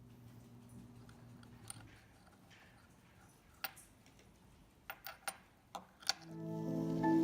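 A handful of sharp, separate small clicks and taps, about seven in all, with several close together around five seconds in, from a Tesla Model X key fob being handled for its battery change. Background music with sustained notes comes in near the end.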